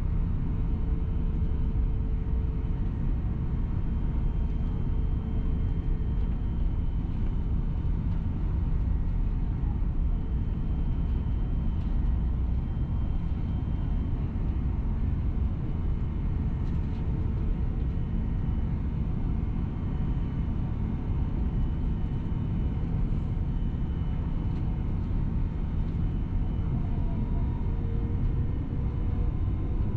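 Steady cabin noise inside an Airbus A350-1000: a deep, even rumble of engines and airflow with a faint steady whine above it.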